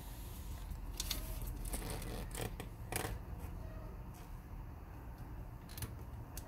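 Light clicks of an RC crawler chassis with Axial AR45 axles being handled and flexed by hand: the plastic and metal suspension and steering parts knock a handful of times, over a low steady hum.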